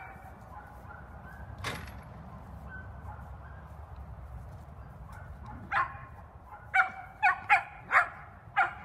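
A dog barking: a quick run of about six short, sharp barks over the last three seconds, after one fainter sharp sound about two seconds in.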